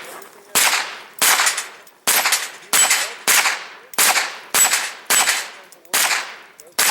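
Pistol-caliber carbine firing a string of about ten shots, one roughly every 0.6 to 0.8 seconds, each crack followed by a short echo.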